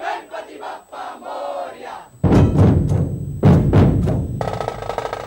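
Voices shouting together, then from about two seconds in a dhol tasha troupe strikes heavy, booming dhol strokes, and a little over four seconds in a fast tasha roll starts over them.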